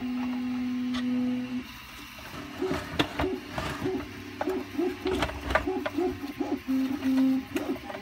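Scattered clicks and knocks of 3D-printed plastic robot parts being handled and bolted together with a screwdriver. Behind them a steady hum stops about a second and a half in, followed by short whirring tones that rise and fall a couple of times a second.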